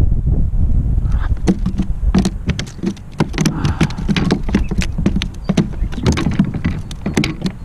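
Irregular sharp taps and knocks on a plastic fishing kayak as a freshly caught small bass is handled aboard, over a steady low rumble of wind on the microphone.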